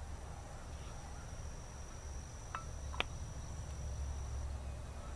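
An insect's steady high-pitched trill over a low rumble of outdoor background, stopping near the end. Two light clicks about two and a half and three seconds in.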